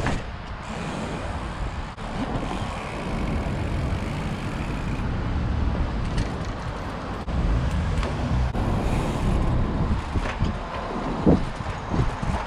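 Inspired Fourplay trials bike ridden over paving: steady tyre rolling noise with low wind rumble on the microphone, then several sharp knocks and clatters of the bike near the end, the loudest about a second before the end.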